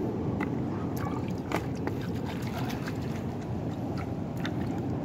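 Shallow seawater at a pebbly shore lapping and splashing steadily, with a few sharp clicks scattered through, the loudest about a second and a half in.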